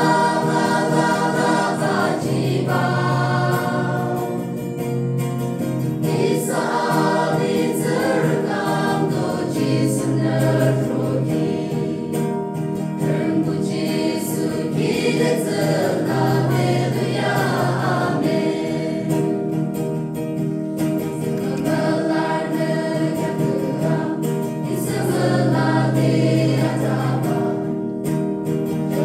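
Mixed choir of young men and women singing a gospel song together, accompanied by acoustic guitar.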